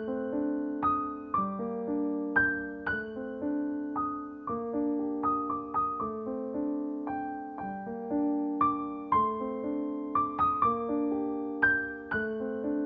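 Background music: a slow, gentle piano melody, notes struck one or two a second and ringing out over held lower notes.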